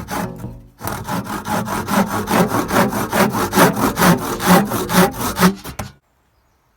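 Hand saw cutting through dry Christmas-tree wood with quick back-and-forth strokes, about five a second, sawing out a notch for a cross joint. A few strokes, a short pause, then steady sawing that stops near the end.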